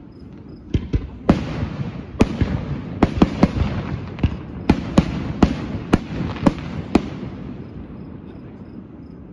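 Aerial firework shells bursting in a rapid string of sharp bangs over a continuous rumble. The bangs stop about seven seconds in, and the rumble dies away.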